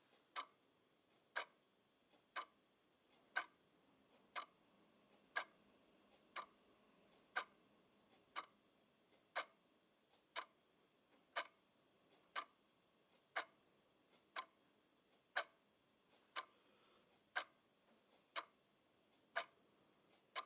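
Wall clock ticking, one sharp tick each second, evenly paced.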